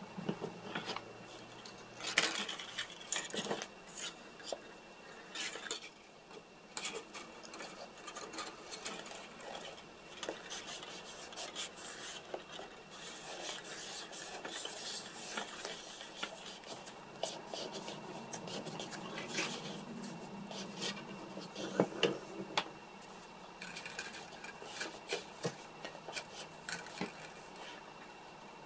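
Hands wrapping string tightly around a silicone rubber mold capped with a wooden board: string rubbing and scraping on the mold, with scattered small clicks and knocks of handling against the workbench, a few of them sharper.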